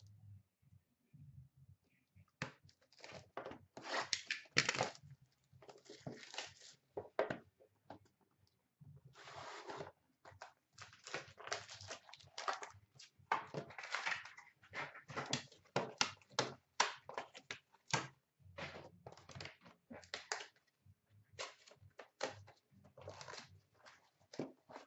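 Packaging of a Panini Prime hockey card box being torn open and handled: a dense run of irregular crinkling and tearing of wrap and cardboard, starting a couple of seconds in, with short pauses.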